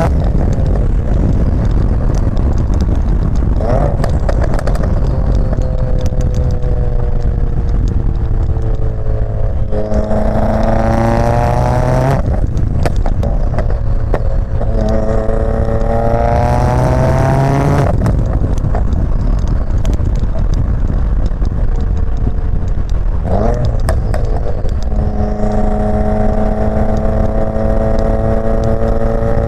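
Subaru WRX's turbocharged flat-four running through a Greddy RS-Race catback exhaust with a catless J-pipe, on the move. Its pitch climbs in several pulls, each falling back sharply at a gear change, with sharp pops and crackles in the exhaust.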